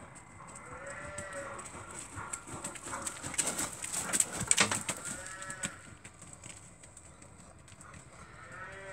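A horse's hooves thudding on the arena surface, loudest as it passes close by in the middle, while cattle low several times in short, arching moos.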